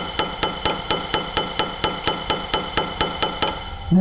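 Hammer striking the steel rear lump of a side-by-side shotgun's barrels held in a vise, a fast even tapping of about four blows a second with a metallic ring, stopping shortly before the end. The blows are flattening the metal just knocked up on the bite, to tighten the action.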